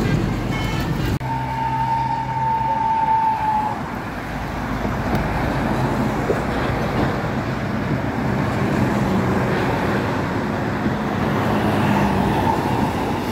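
Bus and road traffic noise, with engines running. A single steady horn note starts about a second in and holds for about two and a half seconds.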